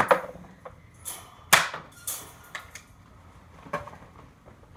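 Nerf blasters and foam darts in play: a string of about seven sharp clacks and knocks at uneven spacing, the loudest near the start and about one and a half seconds in.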